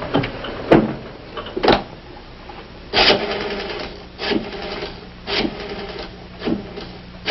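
Clicks and rattles from a wall telephone being worked, coming about once a second, with one longer rattle about three seconds in.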